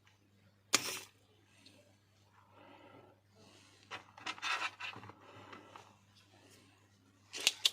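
Small hand tools clicking and scraping on a phone during a charging-socket repair: a sharp click about a second in, a stretch of scraping in the middle, and two more clicks near the end, over a steady low hum.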